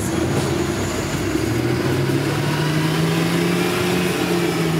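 City bus engine running just ahead, its hum rising in pitch about a second and a half in and then holding steady, over the hiss of street traffic.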